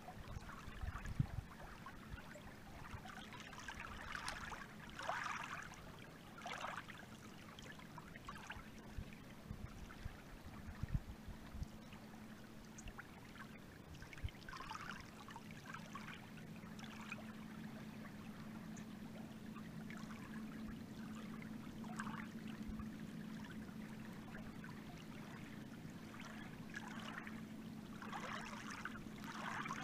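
Lake water splashing and lapping against the hull of a moving boat in irregular surges. A steady low hum runs underneath and grows a little louder past the middle.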